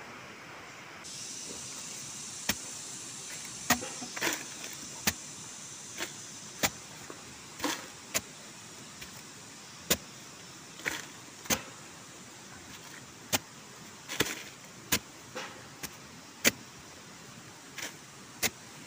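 A pointed digging tool jabbed repeatedly into damp soil to dig a hole, giving irregular sharp strikes about once or twice a second over a steady high hiss.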